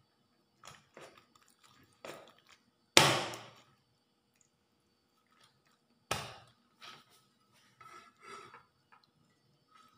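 Meat cleaver chopping a bone-in boiled chicken thigh into pieces on a cutting board: two hard chops, about three and six seconds in, with lighter knocks and taps of the blade on the board between.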